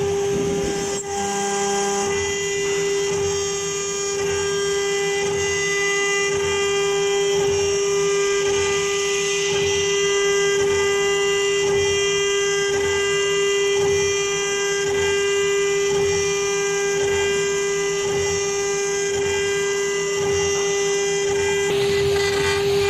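Acctek 6015 CNC router's two electric spindles running at a steady high-pitched whine while their engraving bits cut shallow grooves into a wood board. A low rhythmic pulsing repeats a little more than once a second underneath, and a hiss rises near the end.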